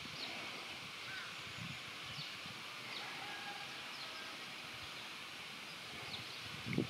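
Outdoor lakeside ambience: small birds giving many short, scattered chirps and a few brief whistles over a steady high hiss, with a few low thumps near the end.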